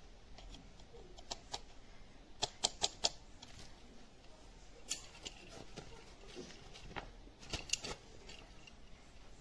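Faint background with scattered sharp clicks and taps, including a quick run of four about two and a half seconds in and another pair near the end.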